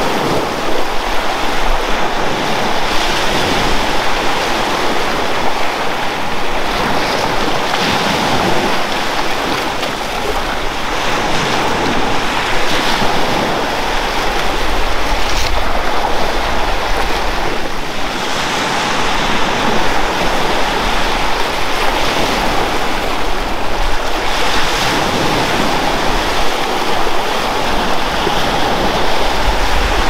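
Sea surf washing onto a beach in repeated swells, with wind rumbling on the microphone.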